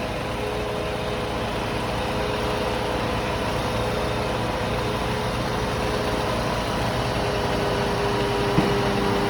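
Engine of heavy tree-removal machinery, most likely the grapple-saw crane, running steadily with a constant low rumble and a steady whine on top. It gets slowly a little louder, with one brief tick near the end.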